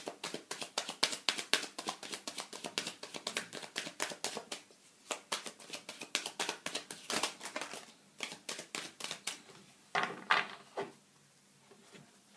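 Tarot cards being shuffled by hand: a rapid run of crisp card flicks and riffles, with a few louder snaps about ten seconds in, then quieter.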